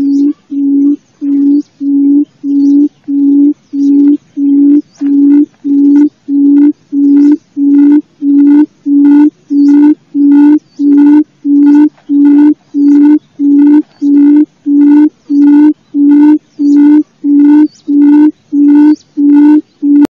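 Quail call used as a trapping lure: a low hooting note repeated at an even pace, a little under two a second, growing slightly louder over the first few seconds.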